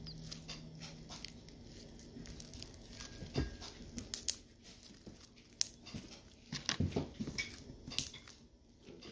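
Slime being squeezed and worked by hand, giving irregular sticky crackles and pops.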